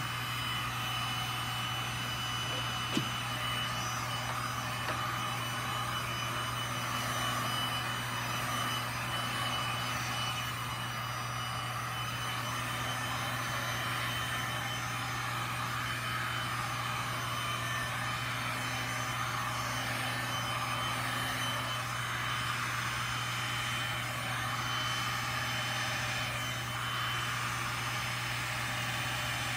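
Electric heat gun blowing steadily over poured resin, a continuous rush of air with a low hum and a thin, steady high whine.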